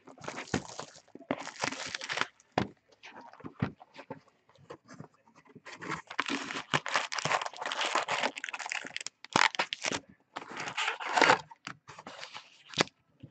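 Plastic shrink-wrap torn and crumpled off a trading-card hobby box, then the box opened and foil card packs crinkling and scraping as they are pulled out, in irregular rustling bursts.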